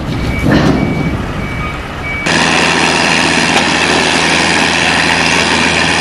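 Three high reversing-alarm beeps over rough rumbling noise, which cuts off abruptly about two seconds in to a heavy diesel engine running steadily.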